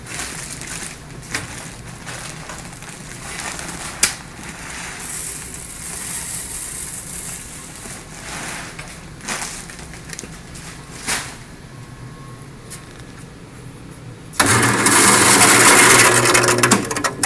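Grain poured from a paper sack into a metal hopper: rustling, crinkling of the sack and a few knocks. About three-quarters through, the motor-driven grain mill switches on and runs loudly with a steady hum and a grinding rush for about two and a half seconds, then stops.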